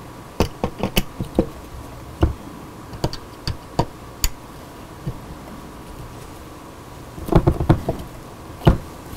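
Screwdriver turning and seating small screws through a graphics card's backplate into a water block's standoffs: scattered light clicks and taps of the tool on the screw heads and plate, with a quicker cluster of clicks about seven seconds in.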